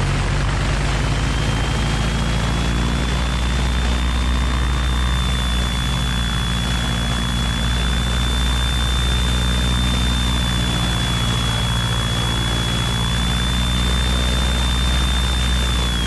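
Cessna 172SP's four-cylinder Lycoming engine and propeller running at steady run-up power, a constant low drone with a high whine over it. The whine climbs about a second in as power comes up, holds level, and starts to fall at the very end as the power comes back.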